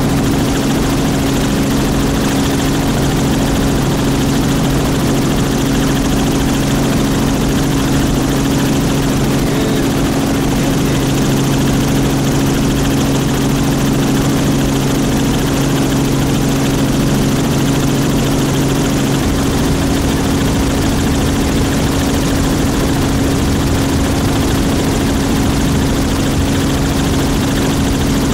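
Light aircraft engine running steadily in flight: a constant droning hum over rushing wind noise. A lower tone in the hum drops out about two-thirds of the way through.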